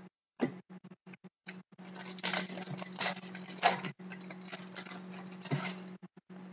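Upper Deck Series 1 hockey cards being shuffled in the hands and dropped onto stacks on a table: a run of crisp card rustles and light slaps, busiest in the middle and loudest a little past halfway, over a steady low hum.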